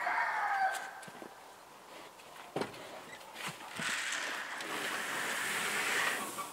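Dry pig feed poured from a plastic bucket into a wooden feeder box: a steady hissing rush lasting a couple of seconds, starting about four seconds in. A single sharp knock comes a little before it.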